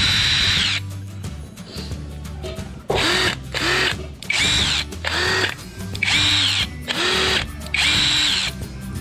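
Workzone 20V cordless impact drivers, a new brushless one and an older brushed one, run free without load in short trigger pulls. Each burst is a high motor whine that spins up, holds and winds down, repeated several times, with no hammering.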